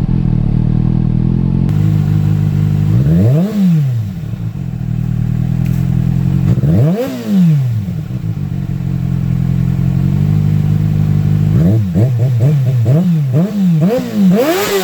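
2007 Kawasaki ZX6R's inline-four idling on its stock exhaust with the factory catalytic converter, revved up and back down twice, then blipped five or six times in quick succession near the end.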